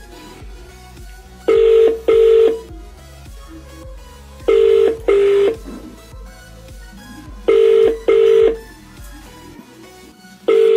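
Ringback tone of an outgoing phone call heard through the boAt Stone 200 Bluetooth speaker: a low double ring, repeating about every three seconds, three full times, with a fourth starting at the very end.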